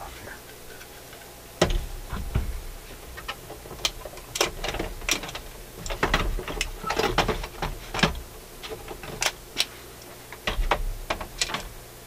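Irregular clicks, knocks and clatter of a Dual 1228 turntable being handled as its platter is lifted off and its deck is tipped up out of the wooden plinth, with a couple of heavier thumps about two seconds in and near the end.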